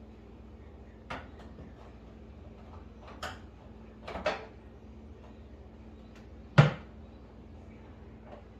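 Scattered clicks and knocks from unscrewing and working a panel loose on a GE microwave, four or five separate strikes with the loudest, a sharp knock, about six and a half seconds in.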